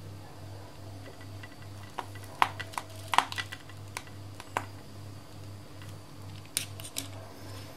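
Small sharp clicks and taps of a precision screwdriver and fingers working a screw into a Huawei Y7 Prime 2017 smartphone's frame, in a cluster about two seconds in and a few more near the end, over a steady low hum.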